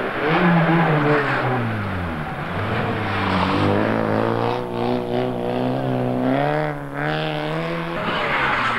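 Volkswagen Golf Mk2 rally car's engine passing close by: the note falls over the first two seconds as the car slows for a corner, then holds high and wavering as it accelerates away. Near the end another rally car's engine is heard approaching.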